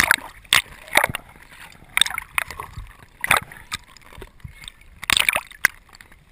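Underwater sound through a diver's camera: a string of sharp, irregular knocks and clicks with bubbling and water hiss between them, as a speared fish is handled against the rocks.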